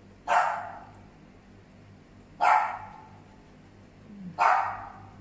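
A pet dog barking three times, about two seconds apart, each bark sharp and short.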